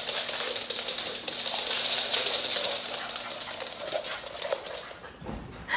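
A small French bulldog's claws scrabbling and pattering on a hardwood floor as it dashes about: a dense run of fine rapid clicks for about four seconds, fading away near the end.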